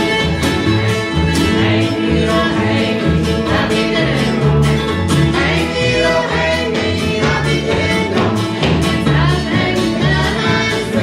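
Old-time string band playing live: mandolin, guitar, fiddle and upright bass, with voices singing together in harmony.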